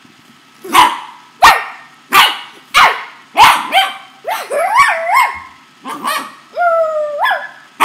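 Corgi puppy play-barking: five sharp barks about two-thirds of a second apart, then higher yips that waver up and down in pitch and one drawn-out, howl-like call, with another bark at the very end.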